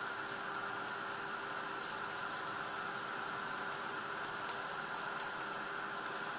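Faint, irregular light ticks from a small plastic cup being tapped and shaken to sprinkle glitter and ultra thick embossing enamel (UTEE) powder onto a hot flower, over a steady low hum.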